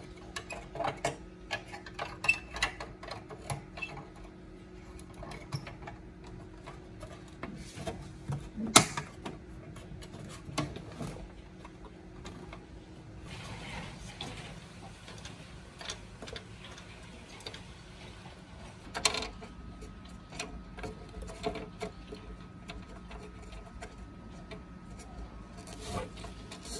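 Irregular clicks, taps and knocks of tools and small parts being handled during electronics repair work, over a faint steady hum; a sharp knock stands out about 9 seconds in and another about 19 seconds in.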